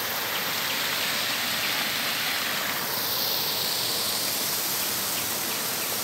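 A shallow river flowing over rocks, a steady rushing hiss of moving water.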